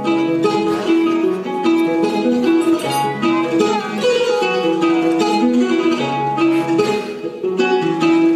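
Instrumental background music: a melody of quickly plucked string notes, running steadily.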